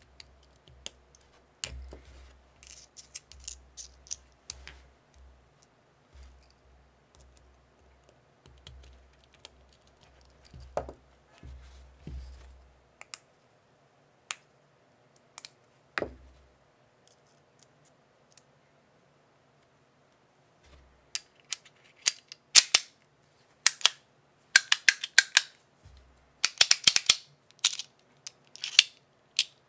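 Mr. Wang Battle Master, a stainless steel gun-style fidget slider, being handled with soft clicks and rubbing, then worked hard from about twenty seconds in. Its metal slide gives sharp metallic clicks and snaps, some in quick clusters.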